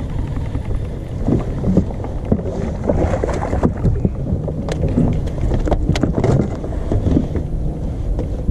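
Wind buffeting the microphone and water moving around a fishing kayak, with scattered knocks and clicks throughout.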